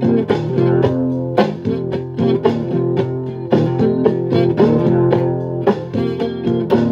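Guitar strummed in chords, the strokes coming a few times a second and the chords ringing between them.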